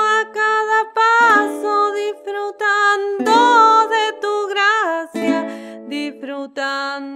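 A woman singing a Spanish-language folk song, holding long bending notes between short phrases, while accompanying herself on a small acoustic guitar.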